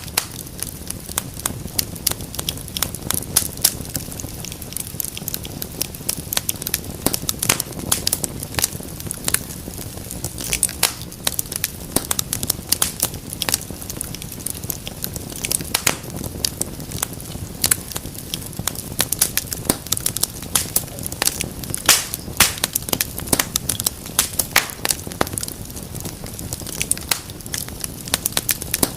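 Wood fire crackling steadily: many irregular sharp pops and snaps over a soft low rumble of flames.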